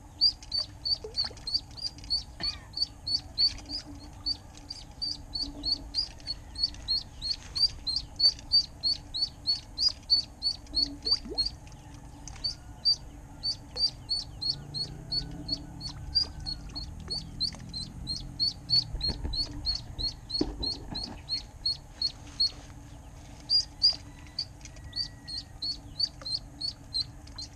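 Duckling peeping loudly and without pause, about three peeps a second, as it dangles on a bamboo pole over the water as live bait for snakehead.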